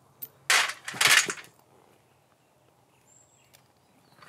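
Steel chain rattling and scraping as it is laid over a log, two short bursts in the first second and a half, then nearly quiet.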